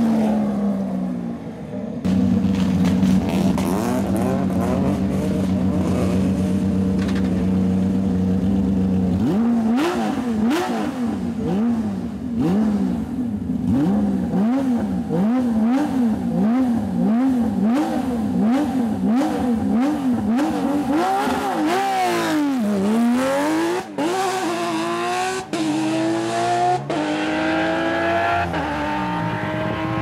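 Porsche 997 GT3 rally car's flat-six engine settling to a steady idle, then blipped over and over in quick short revs, about one a second and a bit faster. Near the end it pulls away hard, the revs rising in several steps with gear changes between them.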